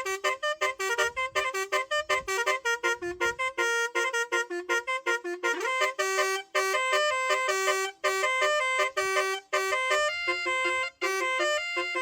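Truck's musical melody horn playing a tune of short stepped notes, fast and clipped for the first half, then longer held notes with brief breaks.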